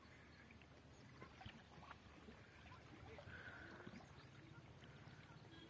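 Near silence: faint outdoor background with a low hum and a few faint ticks, and a faint short high note about three seconds in.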